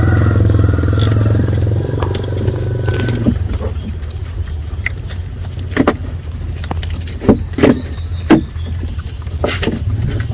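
A steady low engine hum that eases after about three seconds, then several sharp clicks and taps in the second half.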